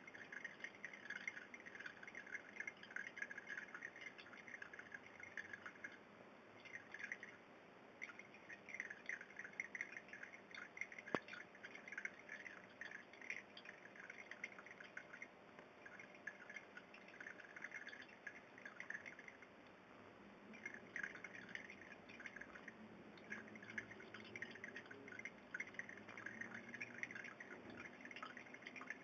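Faint aquarium water sounds: irregular clusters of small bubbling and dripping ticks that come and go in stretches, with one sharp click about eleven seconds in.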